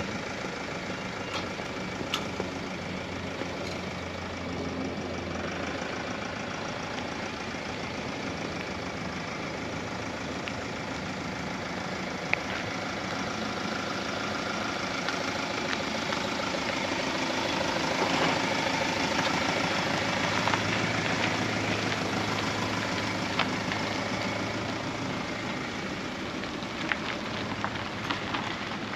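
A motorhome's engine running at low revs as it drives slowly past. The engine and tyre noise grow louder as it approaches, are loudest about two-thirds of the way through, then ease off as it pulls away.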